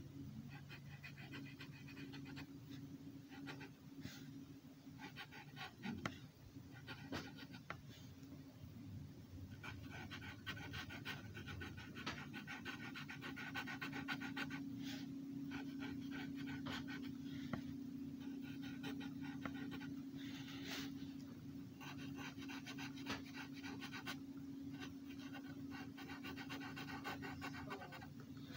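Red Sharpie marker colouring on paper: quick back-and-forth strokes of the felt tip scratching and squeaking, in runs of a few seconds with short pauses between. A steady low hum sits underneath.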